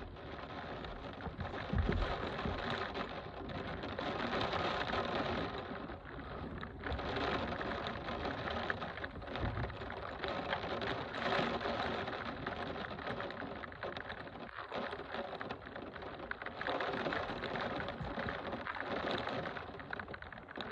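Heavy rain in a thunderstorm downpour, a dense hiss of drops striking a hard surface that swells and eases every few seconds.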